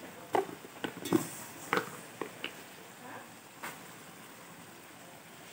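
Kitchen utensils clicking and knocking beside a kadai of spiced mushrooms: a cluster of short sharp taps over the first couple of seconds and one more later, over a faint hiss.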